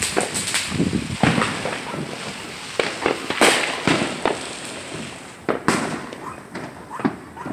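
Consumer fireworks going off around a neighbourhood: a string of sharp bangs and pops at irregular intervals, some near and loud, some farther off.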